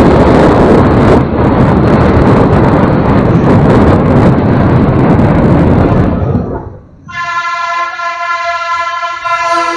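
Heavy wind rumble and road noise from riding along a town street, fading away after about six seconds. About a second later a steady held tone with many overtones, like a long horn blast, takes over.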